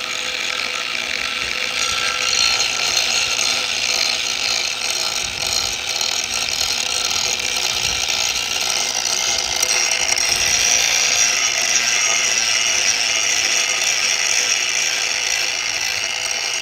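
Angle grinder running steadily with a high whine, its disc grinding hardened epoxy resin drips off the edge of a table top.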